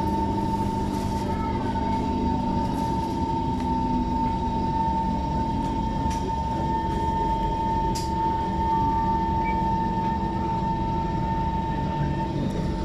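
SMRT metro train heard from inside the carriage: a steady running rumble with a constant high whine and a few faint clicks.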